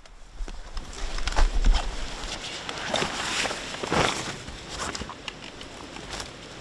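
Footsteps and the rustle of clothing and gear, then a loaded hunting backpack dropped onto the ground about four seconds in, followed by a few lighter knocks.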